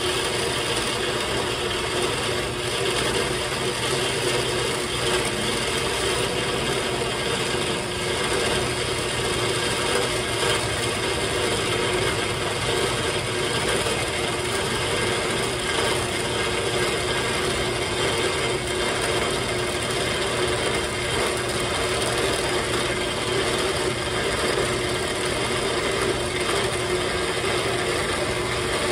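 Horizontal metal-cutting band saw running steadily, its blade slowly feeding down through a metal tube under the saw arm's own weight.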